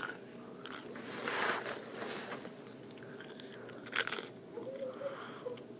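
Chips being bitten and chewed, crunching, with one sharp crunch about four seconds in.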